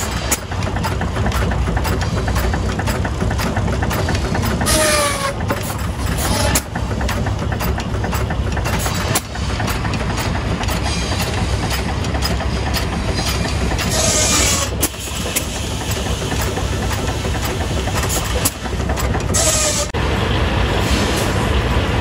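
Antique engine-driven sawmill machinery running: a steady low chugging rumble full of rapid knocks. Three times a hissing whine rises over it and falls in pitch.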